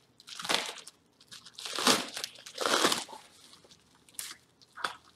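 Plastic bubble wrap crinkling and rustling in several short bursts as it is cut with a knife and pulled off a new exhaust pipe.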